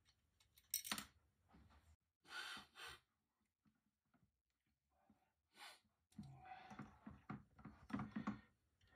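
Faint handling noise of small metal parts as a camera board and screws are fitted to a metal mounting plate. There is a sharp click about a second in, a brief rustle a little later, then a longer run of clicks, rattles and scrapes near the end.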